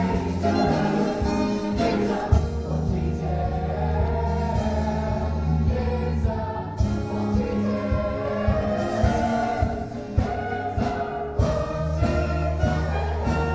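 A musical-theatre ensemble singing together as a chorus over instrumental accompaniment, with a steady low bass line and percussion.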